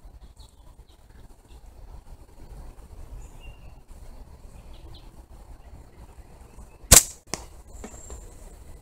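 A slingshot with flat rubber bands fires once about seven seconds in: a single sharp snap as the bands are released, followed less than half a second later by a much fainter click.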